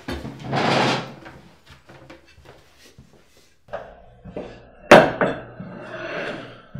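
Chair and dish handling at a wooden dining table: a short scrape near the start as a chair is pushed back, small knocks, then a plate comes down on the tabletop with a sharp clunk about five seconds in, the loudest sound.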